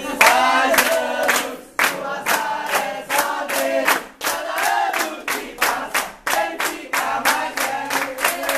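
A group of people singing a birthday song together, in Portuguese, while clapping hands in a steady rhythm.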